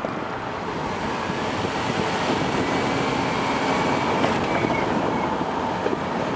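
Car driving at low speed: a steady blend of tyre and engine noise with no sharp events.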